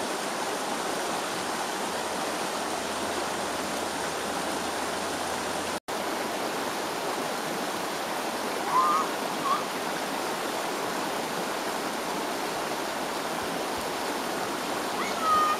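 Yarra River rapids running over rocks: a steady rush of water. A few brief high calls cut through about nine seconds in and again near the end.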